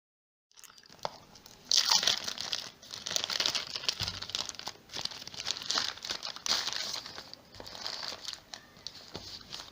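Plastic packaging crinkling and tearing in irregular handfuls as a smartphone box is unwrapped, with many short sharp crackles, loudest about two seconds in and easing off near the end.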